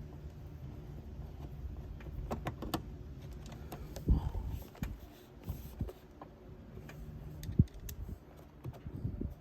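Scattered clicks, taps and knocks of hand tools and small parts being handled during car door lock repair, the loudest about four seconds in and again near the end, over a steady low hum that fades out about halfway.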